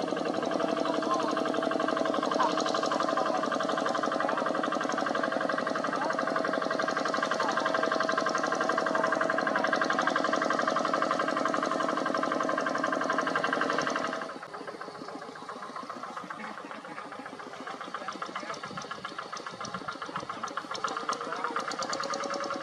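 Kubota single-cylinder diesel engine of a two-wheel hand tractor running steadily while ploughing, with a rapid, even diesel clatter. About fourteen seconds in it suddenly becomes quieter and thinner.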